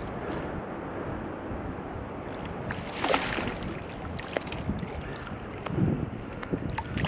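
Steady rush of flowing river water, with a splash about three seconds in.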